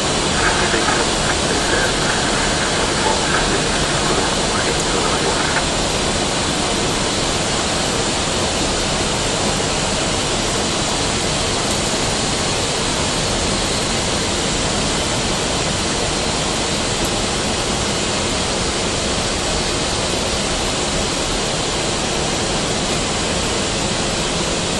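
Steady loud rush of slipstream and engine noise inside an airliner's cockpit on approach. A faint steady tone sounds for the first few seconds and then stops.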